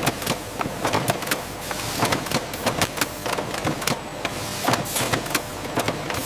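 Production-line machinery running, with rapid irregular mechanical clicking and clacking over a steady whirring noise.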